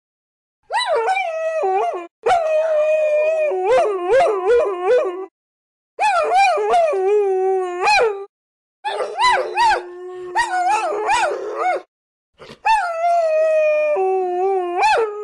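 Several dogs howling and yapping together, their voices overlapping. Some hold a steady howl while others yip up and down in pitch, in five bouts broken by short silences.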